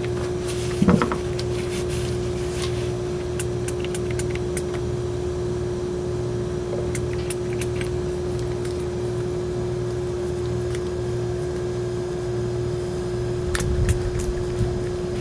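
Steady mechanical hum with one constant tone, over which come scattered light clicks and two louder handling knocks, about a second in and near the end, as the sharpening stone's surface is wiped clean.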